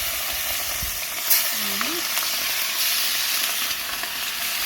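Seasoned chicken pieces frying in hot oil in a pot, a steady sizzle, with a sharp click about a second in.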